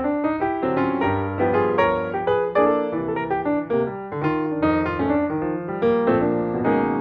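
Background piano music with notes played in quick succession.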